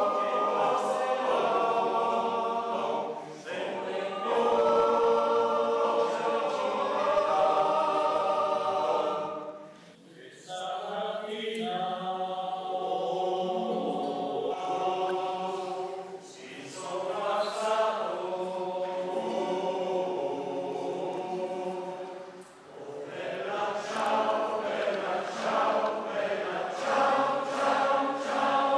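Choir singing held chords in long phrases, with short breaks between phrases roughly every six seconds.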